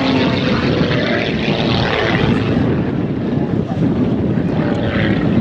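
Pitts S-2S Special aerobatic biplane's piston engine and propeller running through aerobatic manoeuvres. The sound is steady and loud, swelling about two seconds in and again near the end.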